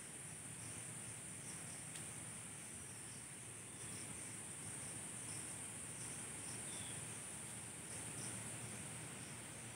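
Insect chorus: a steady high-pitched drone with a faint chirp repeating about twice a second.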